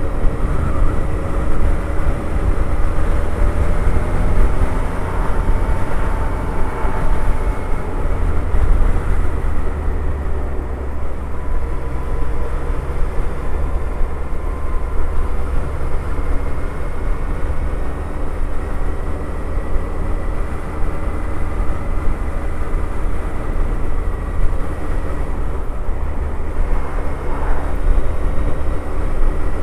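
Suzuki Hayabusa's inline-four engine running steadily at cruising speed, its pitch drifting slowly up and down, over a heavy low rumble of wind and road noise.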